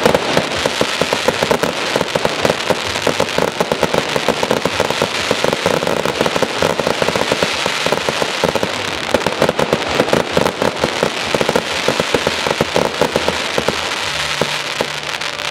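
Aerial fireworks bursting in a continuous run, a dense, rapid crackling and popping with no let-up.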